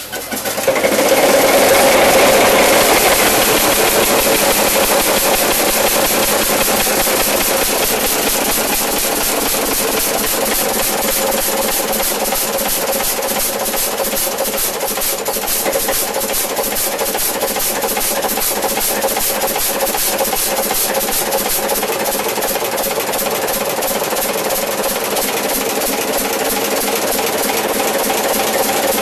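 Superior push-rod diesel engine on a Westinghouse generator set starting up. It catches right at the start, is loudest for the first couple of seconds, then settles into a steady running beat.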